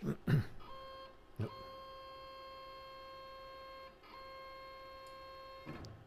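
Y-axis stepper motor of a Langmuir Crossfire Pro CNC plasma table whining at a steady pitch as the carriage is jogged toward the limit switch, with a short break about four seconds in. A short thump comes just before the whine starts, and a click about a second and a half in.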